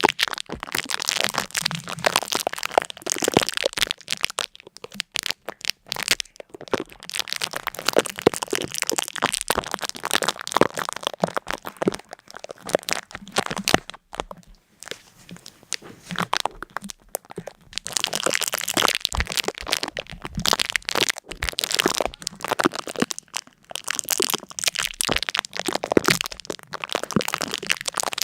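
Dense, irregular crackling and crunching: many small sharp cracks in quick succession, thinning out briefly a few times, notably around 4–7 seconds and about 15 seconds in.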